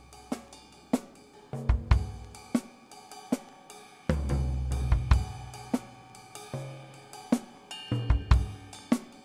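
Background music: a drum kit with cymbals keeping a steady slow beat over deep bass notes.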